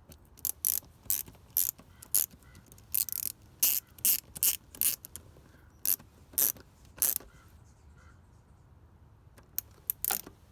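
Ratchet wrench clicking in short runs as a screw is tightened down on the diverter valve, with a few more clicks near the end.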